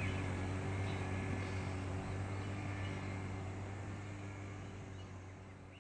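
Outdoor background: a steady low droning hum under a hiss, fading out near the end.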